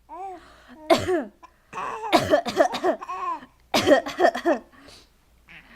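Baby coughing: sudden sharp coughs about a second in and again near four seconds, with a run of short, high-pitched voiced sounds between them.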